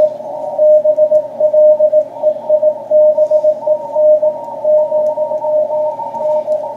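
Morse code (CW) signal on the 40 m amateur band coming from a shortwave transceiver's speaker: a single steady beep keyed on and off in dits and dahs, over a constant hiss of band noise in the receiver's narrow passband. It is being received and copied by hand.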